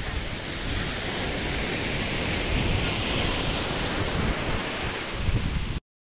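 Steady sea surf washing on a beach, mixed with wind rumbling on the microphone; the sound cuts off abruptly near the end.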